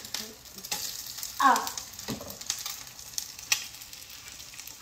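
An egg frying in a non-stick pan with a steady, faint sizzle, while a slotted metal spatula clicks and scrapes against the pan a few times.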